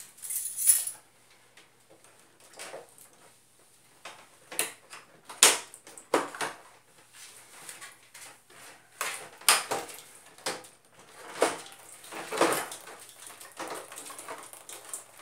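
Irregular plastic clicks, knocks and scrapes as the front panel and casing of a split-type aircon indoor unit are handled and worked on.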